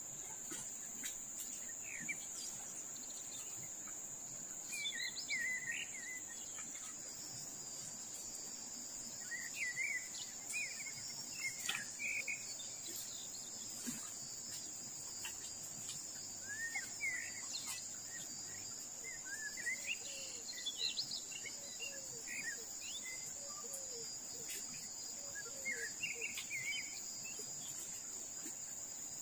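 Forest insects keep up a steady, high-pitched drone. Birds chirp in short bursts several times over it. A low, even rush of the fast-flowing river sits underneath.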